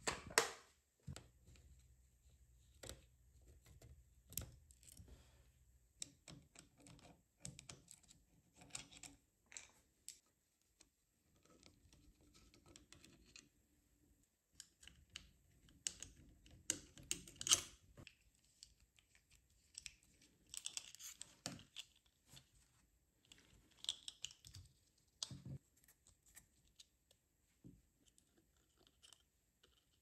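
Quiet, scattered clicks, taps and scrapes of hand work on a stripped Smith Corona Silent typewriter: a plastic screwdriver case and a small screwdriver being handled, and metal parts of the mechanism being worked. The sharpest clicks come right at the start and again about two-thirds of the way through.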